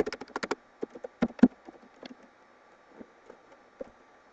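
Computer keyboard keys clicking as a word is typed: a quick flurry of keystrokes at the start, more about a second in, then a few scattered taps.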